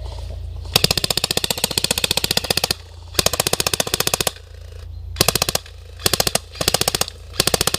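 Airsoft guns firing on full auto: a long burst of about two seconds, then five shorter bursts of rapid, evenly spaced shots.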